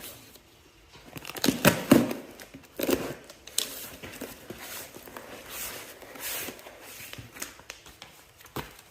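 A box of new tools being unpacked by hand, its wrapping crinkling and tearing in irregular bursts. The loudest bursts come about one and a half to two seconds in.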